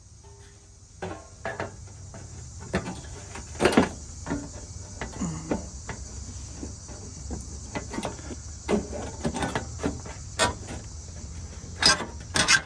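A series of irregular clicks and knocks over a steady faint hiss, the loudest about four seconds in and a cluster near the end.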